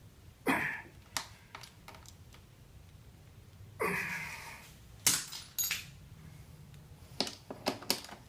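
An Allen wrench clicking and clinking against a metal bolt as a part of a motorcycle's footpeg mount is tightened by hand: a dozen or so sharp, scattered taps in small clusters, with a couple of brief rustling hisses between them.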